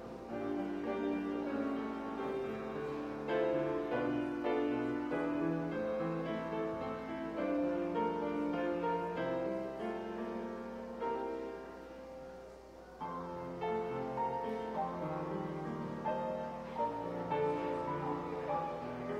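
Grand piano playing a slow, chordal piece with held notes, easing off briefly a little past the middle before going on.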